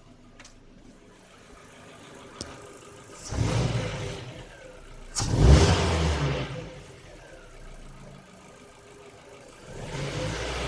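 Ford Focus II 1.6 four-cylinder petrol engine idling and revved up briefly three times, the second rev the loudest. It runs with an unexplained clacking noise, which the owner suspects comes from the valves or from cylinder wear after new pistons and rings were fitted without boring.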